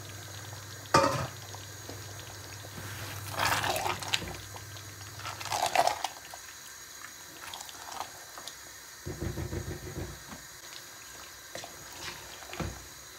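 Marinated chicken pieces sliding and slopping wet into thick tomato purée in a metal pot, then a spatula stirring the mixture with a few scrapes and knocks against the pot. A sharp knock about a second in is the loudest sound.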